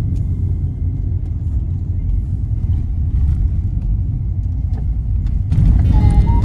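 Steady low rumble of a car on the move, road and engine noise. Music with a melody comes in about five and a half seconds in.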